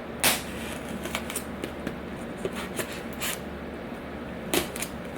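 A blunt knife cutting and scraping at sealed plastic packaging, with scattered short scrapes and clicks; the loudest come about a quarter-second in and again near the end.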